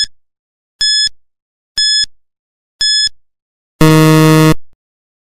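Quiz countdown timer sound effect: short high electronic beeps, one each second, then a longer, lower buzzer about four seconds in that marks time up.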